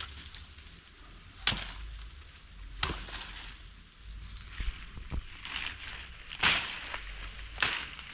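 Machete (bolo) slashing through leafy undergrowth: about six sharp swishing chops a second or so apart, with leaves and stems rustling between them.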